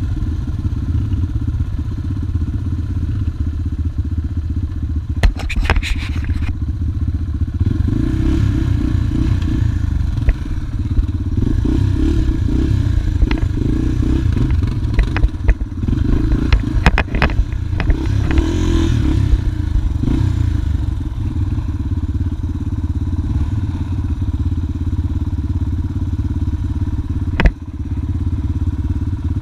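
Dirt bike engine running at idle, a steady low rumble, with a few sharp clicks and knocks at scattered moments.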